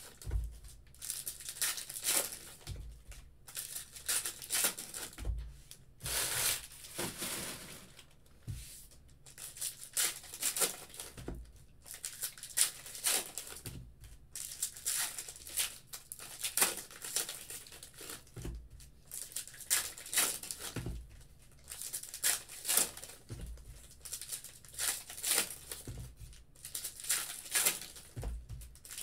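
Foil trading-card pack wrappers being torn open and crinkled, with cards shuffled in the hands and light knocks every few seconds as packs and cards are set down on the desk.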